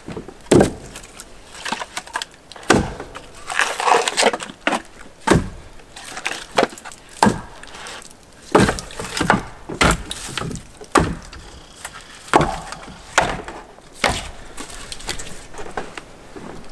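Split firewood being stacked: dry split pieces knocking and clattering against each other as they are set onto the pile, in a run of irregular knocks.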